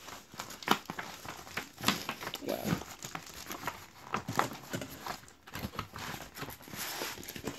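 Plastic packaging crinkling and rustling in irregular crackles as a wrapped playmat is handled and unwrapped.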